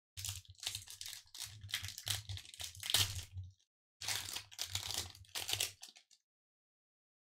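Foil wrapper of a Pokémon Vivid Voltage booster pack crinkling and tearing as it is pulled from the box and opened by hand, in a string of short rustles that stop about six seconds in.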